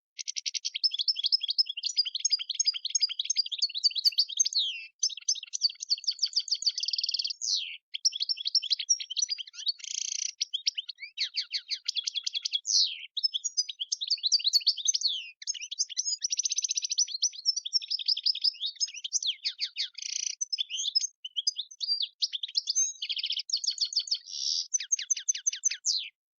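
European goldfinch singing a long, rapid twittering song of quick trills, chirps and buzzy notes, broken by a few short pauses.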